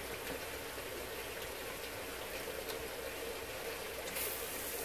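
Tap water running steadily from a spray-head faucet and splashing onto a fish on a plastic cutting board.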